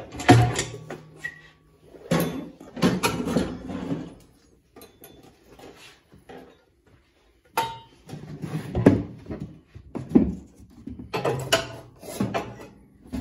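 Metal clanking and scraping in bursts, with a quieter gap in the middle, as stove parts are handled and ash is raked out with a metal tool.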